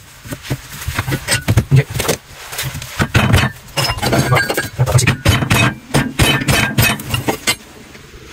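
Irregular sharp metal knocks and clinks as a metal bracket strip clamped in a bench vise is worked and bent into shape, coming thicker from about three seconds in.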